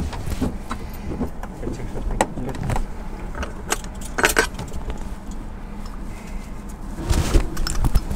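Sharp clicks and knocks of cockpit switches and controls being worked by hand during a helicopter's pre-start checks, the engine not yet running, over a steady low rumble. The clicks come in small clusters, about two, four and seven seconds in.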